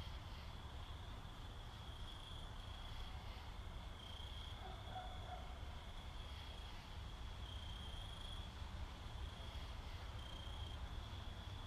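Faint background sound: a steady low rumble with short high-pitched trills of about half a second repeating every second or so, insect-like in character.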